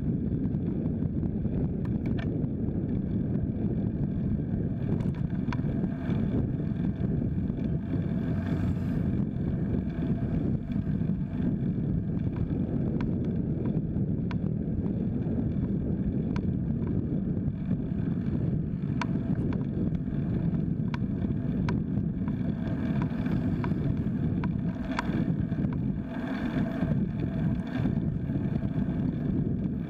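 Steady low rumble of wind buffeting the microphone and tyre noise from a folding bike rolling along a paved road, with scattered light clicks.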